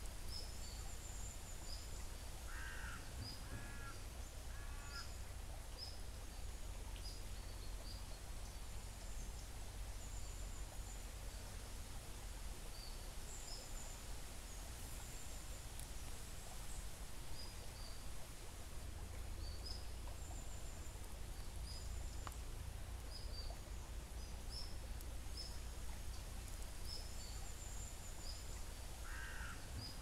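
Small birds chirping over and over against a steady hush of gently flowing creek water. A lower bird call of three notes sounds about three seconds in and again near the end.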